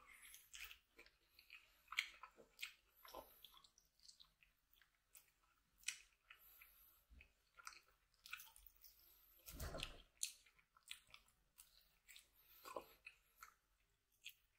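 Close mouth sounds of a person eating braised oxtail by hand, gnawing and chewing meat off the bone: soft, irregular wet smacks and clicks. A longer, louder mouth sound comes about ten seconds in.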